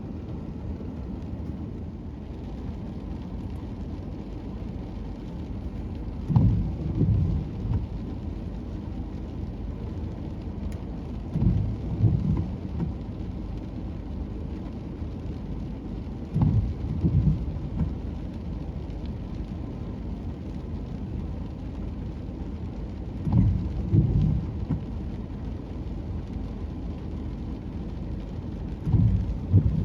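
Ocean surf: a steady low rumble, with a wave breaking and surging louder about every five to six seconds.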